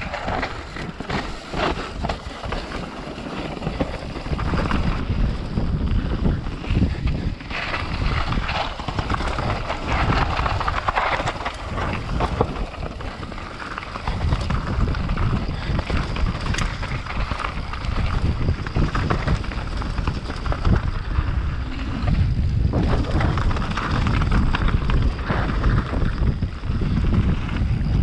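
Mountain bike riding fast down a dirt and gravel trail: wind buffets the microphone and the tyres roll and crunch over the ground, with many small knocks and rattles from the bike over rough terrain.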